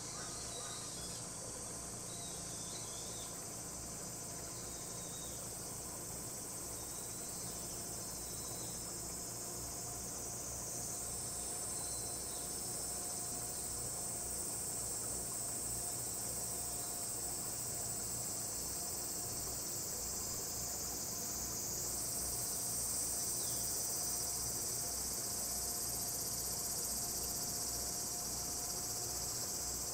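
A steady chorus of insects buzzing shrilly from the trees, growing louder about a third of the way in and again past the middle, over a faint steady low hum.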